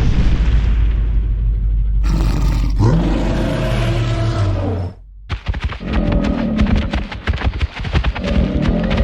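Creature roar sound effects over dramatic music. A low rumble gives way about two seconds in to a long, drawn-out roar that cuts off suddenly about five seconds in. Then come fast, rapid hits with more roars rising and falling over them.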